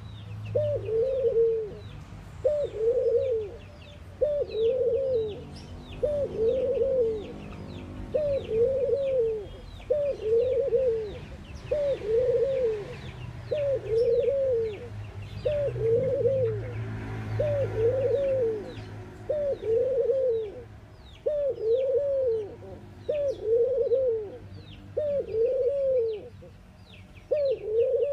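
A caged dove cooing over and over, about one coo a second, each a short note that rises and falls. Short high chirps from smaller birds run on behind it.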